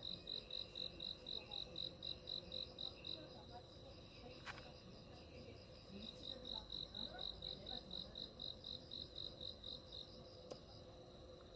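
A cricket chirping in a steady rhythm, about four high chirps a second. It pauses for a few seconds in the middle, then starts again.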